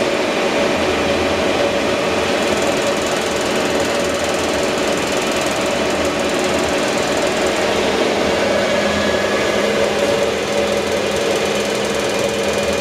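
Sheldon 15" geared-head engine lathe running with its spindle and chuck turning: a steady mechanical hum and gear whine from the headstock. A lower hum joins about two-thirds of the way through.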